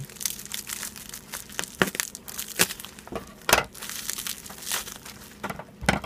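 Scissors cutting through a plastic bubble-wrap package: irregular sharp snips over crinkling plastic, the loudest about three and a half seconds in and just before the end.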